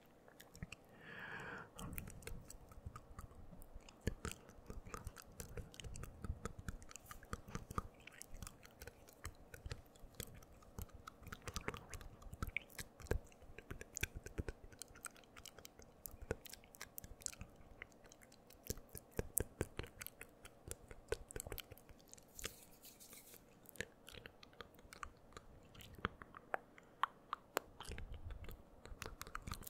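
Close-up ASMR mouth sounds into a microphone: wet tongue and lip clicks, smacks and nibbling sounds, coming rapidly and irregularly, many a second.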